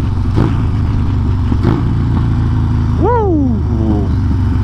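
Harley-Davidson Sportster V-twin running steadily at freeway speed, with wind rush over the handlebar camera. About three seconds in, a brief voice-like sound swoops up and back down in pitch.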